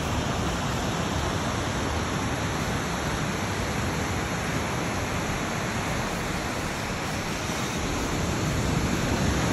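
Steady, even rush of ocean surf.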